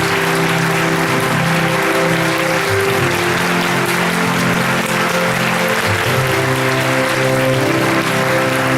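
A theatre audience applauding steadily over recorded curtain-call music with held instrumental notes.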